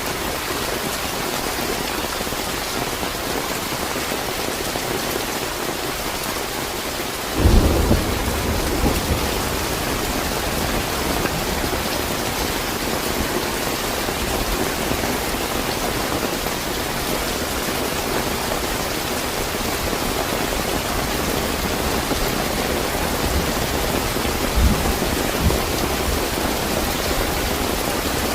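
Steady heavy rain hissing without a break. About seven seconds in a thunderclap breaks in, and a low rumble of thunder goes on under the rain, with more rolls of thunder near the end.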